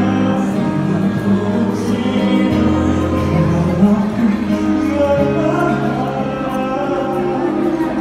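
Live band playing a slow pop ballad through PA speakers, with held bass notes and a male voice singing over it.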